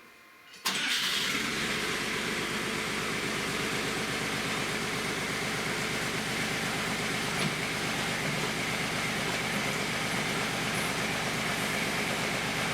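Machine engine running steadily at idle, driving the hydraulic pump used to push a stuck piston out of a backhoe cylinder. It comes in suddenly just under a second in.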